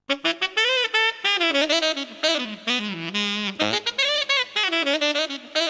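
Saxophone playing a melody of short, quick notes with a wobbling pitch.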